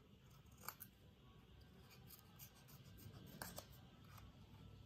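Small scissors cutting a curve into a strip of paper: a few faint snips, one about a second in and two close together past three seconds, against near silence.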